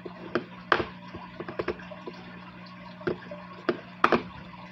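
Fingerboard with a wooden deck and bearing wheels clacking and tapping on a plastic-covered table during flip-trick attempts: a string of sharp, irregular taps, the loudest about four seconds in, over a steady low hum.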